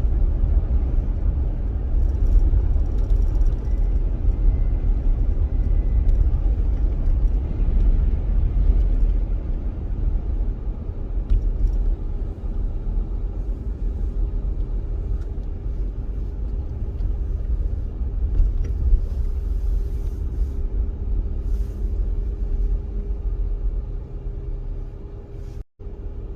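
Steady low road and engine rumble heard from inside a moving four-wheel-drive vehicle, with a faint constant hum over it. It cuts out briefly near the end.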